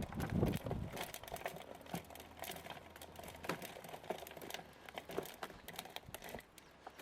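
Loose potting soil being turned and mixed by hand: a string of irregular rustles, crumbles and small clicks, fading toward the end.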